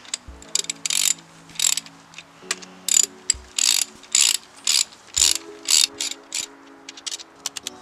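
Hand ratchet clicking in quick bursts, about two a second, as it tightens the connecting-rod bearing cap bolts, a little on one bolt and then the other.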